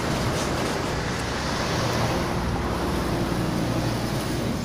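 Steady road traffic noise from cars passing on a multi-lane road, with wind rumbling on the phone's microphone.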